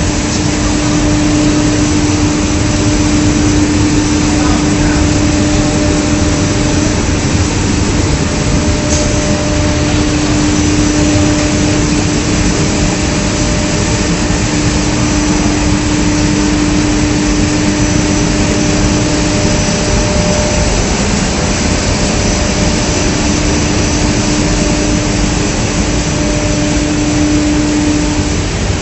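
Industrial textile-finishing machinery running steadily: a loud, even rush of machine noise with a constant hum, which drops out briefly about two-thirds of the way through and then returns.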